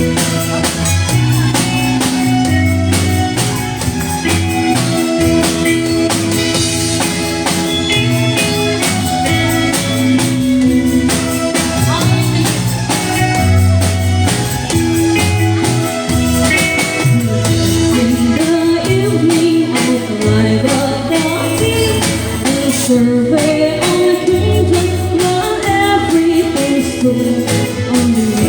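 Band playing a song with a singer, bass and drums, with a steady beat.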